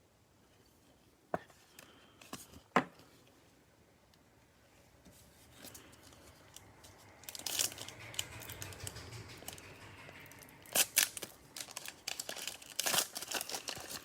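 Trading-card pack wrapper being torn open and crinkled, after a couple of sharp taps in the first few seconds.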